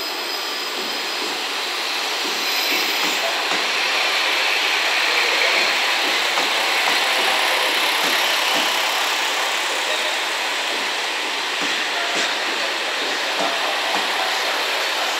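Slow-moving KiHa 40-series diesel railcars passing close by. The underfloor diesel engines run, and the wheels roll over the rails with faint repeated ticks.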